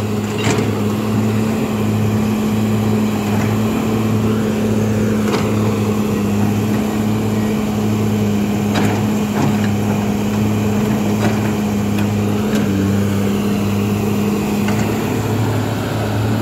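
Kobelco SK200 hydraulic excavator's diesel engine running steadily under working load with an even, pulsing hum as the boom and bucket dig mud from the riverbed, with a few short knocks along the way.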